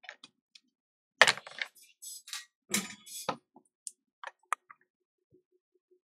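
Clicks and brief clattering of small metal hand tools being handled and set down on a workbench, in a burst of several knocks and scrapes over about two seconds, then a few single ticks.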